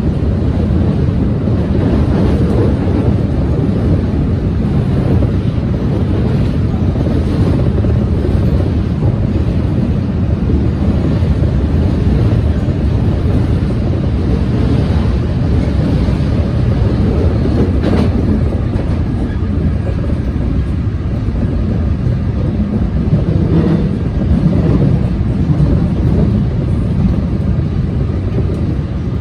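Seoul subway Line 4 train running at speed, heard from inside the carriage: a steady, loud, low rumble of wheels on rails, with a single sharp click about eighteen seconds in.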